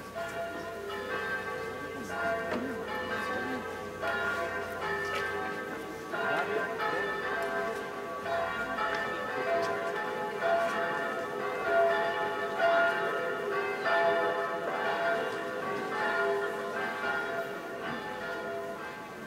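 Church bells ringing a peal, many strikes following one another with their tones ringing on and overlapping.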